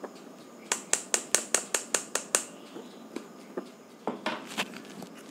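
A stainless steel mesh sieve of flour and cocoa being tapped and shaken to sift the powder through: a quick run of about nine sharp taps, about five a second, then a few more taps near the end.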